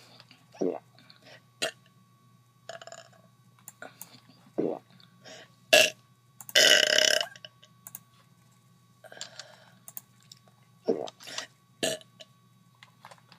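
A woman's deliberate burps, brought up from air she has swallowed and pushed down into her stomach. There are about nine short burps and clicks, spaced out with pauses, and the longest and loudest lasts nearly a second about halfway through.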